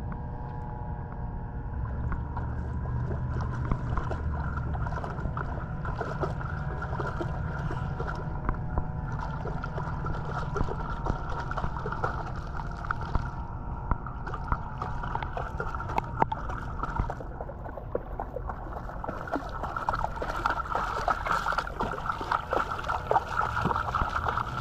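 Shallow water sloshing and lapping at the camera, with a dog splashing as it wades through it; the splashing grows busier and louder near the end.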